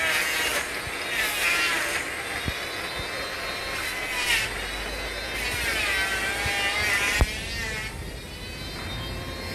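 Motor vehicle engines running, their pitch rising and falling, with a single sharp knock a little after seven seconds.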